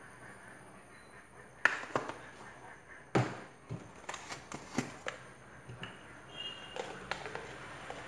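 Kitchen utensils and containers knocked and set down on a countertop: a scatter of short, sharp taps and knocks, the loudest about three seconds in.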